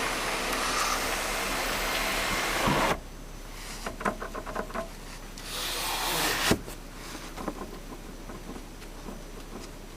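Road noise inside a moving car cuts off about three seconds in. It gives way to quiet creaking, rubbing and clicking from the car's sunroof as it is pressed, with one sharp click near the middle. This is the creak the owner hears from the sunroof while driving.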